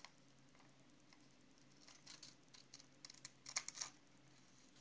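Small scissors snipping magazine paper: a few faint snips about two seconds in, then a quick run of sharper snips between three and four seconds in.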